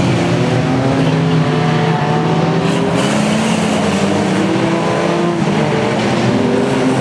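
Engines of several small speedway race cars running together around a dirt oval, their pitches sliding up and down as the drivers accelerate and lift through the turns.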